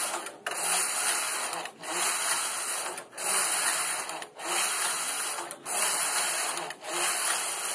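Carriage of a domestic punch-card knitting machine pushed back and forth along the needle bed, knitting jacquard rows. Each pass makes a noisy sliding rush, about six passes roughly 1.3 seconds apart with a brief pause at each turn.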